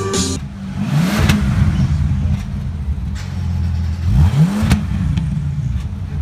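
Bentley Continental GT engine idling and being blipped twice, the revs climbing and falling back quickly about a second in and again about four seconds in.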